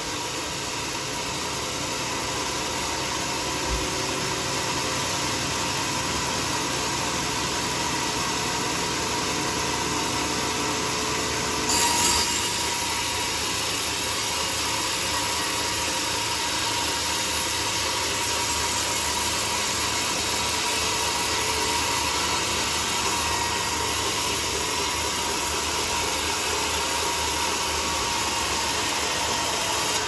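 Homemade band sawmill running steadily, its blade cutting lengthwise through a teak beam with a steady hiss and a faint steady tone. There is a brief louder burst about twelve seconds in.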